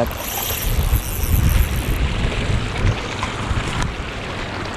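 Wind buffeting the microphone over the wash of the sea, with a thin high hiss that stops about two seconds in.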